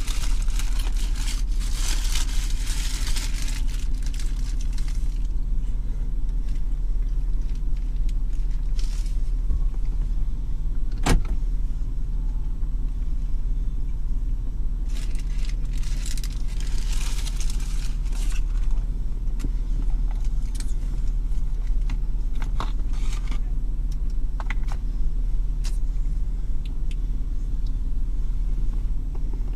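Steady low hum of a parked car idling, heard inside the cabin. Over it come bursts of paper wrapper crinkling as a burger is unwrapped and handled, and a single sharp click about eleven seconds in.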